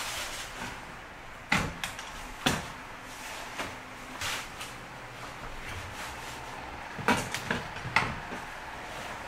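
Heavy tent canvas being handled and spread on a wooden worktable: fabric rustling and swishing, with several sharp knocks and thumps, two close together early on and two more near the end.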